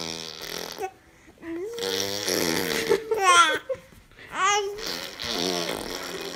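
A baby cooing and babbling, with a long high coo and two sharp rising squeals.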